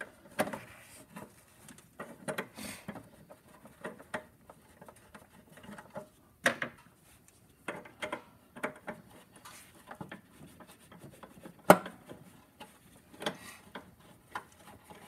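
Hand work on the plastic air box cover and its bolts: irregular clicks, taps and rubbing of a small hand tool against plastic, with a sharper knock about six and a half seconds in and another near twelve seconds.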